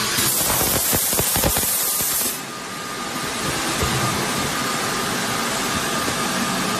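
Automatic plastic vacuum forming machine cycling: a loud hiss of air for about two seconds as the mould works the sheet, then a steady running noise with a faint whine.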